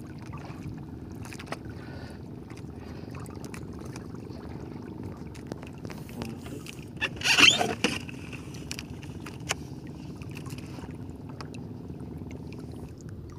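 Steady low drone of a small fishing boat's motor, with water noise, and a brief loud rasping noise about halfway through.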